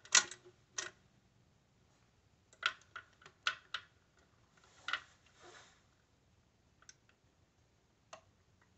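Garrard Z2000B automatic turntable's start lever flicked with a loud click, then its automatic changer mechanism clicking and clunking as the tonearm lifts and swings out toward the record: a second click just under a second in, a quick run of clicks about two and a half to four seconds in, a click with a short rustle around five seconds, and two faint ticks near the end.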